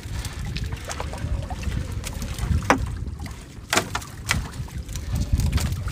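Wind rumbling on the microphone aboard a small fishing boat at sea, with water sounds and several sharp knocks and clatters, the loudest about two and a half and four seconds in.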